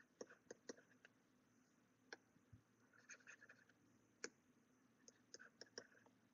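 Near silence broken by faint, scattered clicks of a stylus tapping and writing on a tablet screen, a few of them bunched together.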